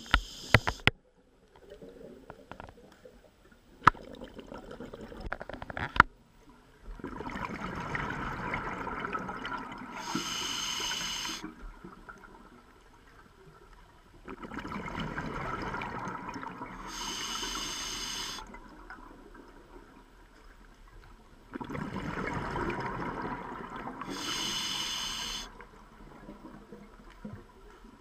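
Scuba diver breathing underwater through a regulator, three breaths about seven seconds apart. Each is a few seconds of bubbly rushing from the exhale followed by a short hiss from the regulator. A few sharp clicks come in the first few seconds.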